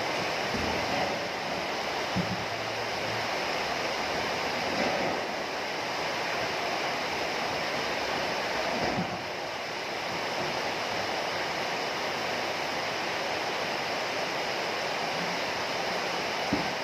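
Heavy rain falling steadily, an even continuous hiss, with a couple of brief low thumps about two and nine seconds in.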